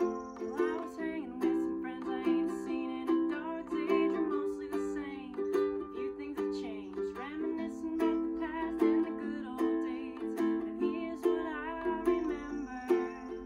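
Ukulele strummed in a steady rhythm, playing chords in the key of C.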